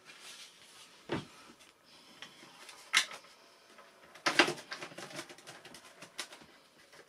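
Handling noises as a hand fits the nose canopy onto a foam model glider: a few scattered light knocks and clicks, the loudest cluster about four and a half seconds in.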